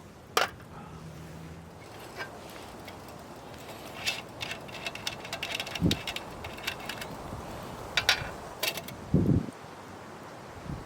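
Camping gear being handled by hand: scattered light metallic clinks and clicks, with two dull thumps, the second about nine seconds in.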